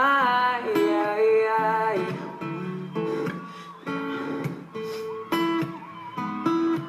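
Live acoustic pop ballad: a male singer finishes the sung word "alright", then acoustic guitar carries on with held chords and a few strums.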